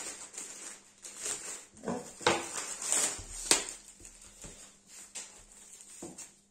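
Plastic packaging wrap being handled and pulled at, rustling and crackling in irregular bursts, the loudest crackles about two to three and a half seconds in.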